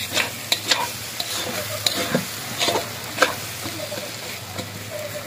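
Tomato-and-spice masala sizzling in oil in a large metal kadhai, with a spoon scraping and clicking against the pan at irregular moments as it is stirred. The masala is being fried down until the oil separates.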